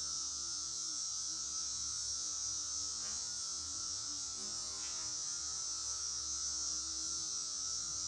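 Honeybees swarming over an open brood frame, buzzing as a steady hum under an even hiss, with no breaks.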